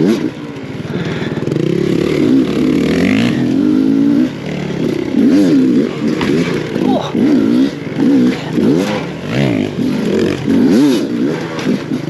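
Enduro dirt bike engine revving up and down again and again as the throttle is opened and shut, the pitch rising and dropping about once a second in the second half, with a few light knocks and clatters.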